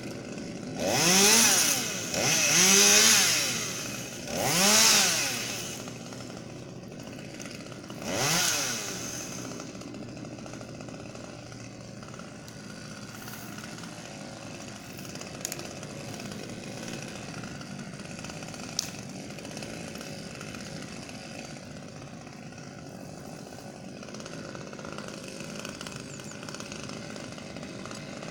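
Husqvarna T540XP top-handle two-stroke chainsaw revved in four short bursts, each rising and falling in pitch, then idling steadily. Two short sharp clicks come later.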